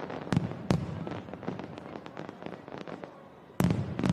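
Fireworks display going off: two sharp loud bangs within the first second, a run of smaller crackling pops, then a fresh volley of loud bangs near the end.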